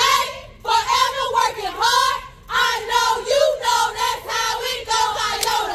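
A group of women singing together in unison, in high voices and short phrases separated by brief breaths.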